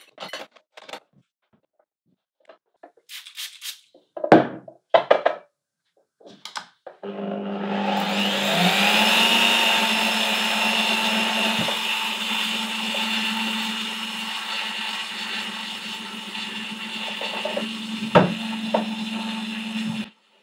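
Benchtop drill press: a few knocks and clicks as a glass jar is set in place, then the motor starts about seven seconds in, its whine rising as it spins up, and runs steadily. A sharp knock comes near the end, and the sound cuts off suddenly.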